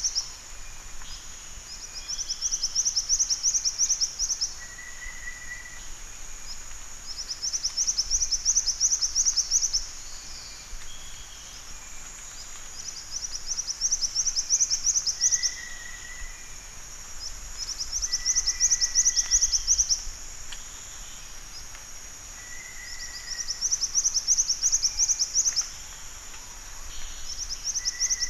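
Black-winged flycatcher-shrike calling: high, rapid trills of fast repeated notes, each phrase about two seconds long, repeated every four to five seconds over a steady background hiss.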